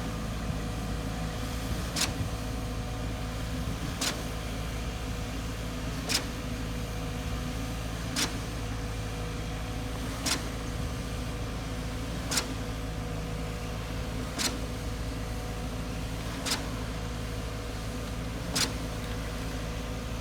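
A concrete pump truck runs steadily during a slab pour, with a diesel engine hum under a sharp knock about every two seconds as the pump cycles.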